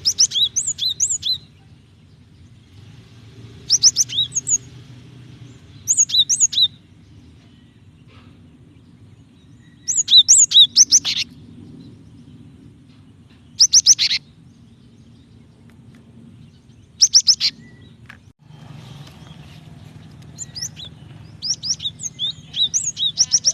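Female cinereous tit calling for a male: short bursts of quick, high chirps, each burst about a second long and a few seconds apart, with a longer run near the end. A faint low hum lies underneath.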